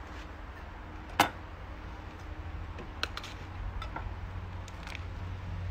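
Scattered light clicks and taps of utensils on a wooden chopping board, with one sharper knock about a second in, over a steady low hum.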